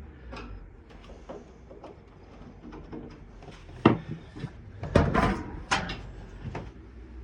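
Handling clatter with a few sharp knocks about four, five and nearly six seconds in, like a cupboard door or cover being opened.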